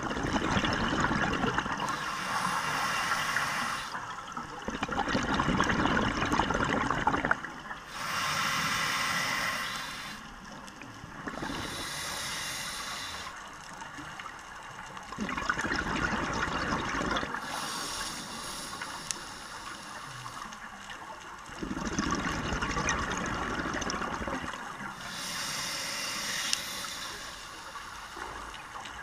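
Scuba diver breathing through a regulator underwater: a hissing inhale alternates with a gurgling rush of exhaust bubbles, about five breath cycles in slow, even rhythm.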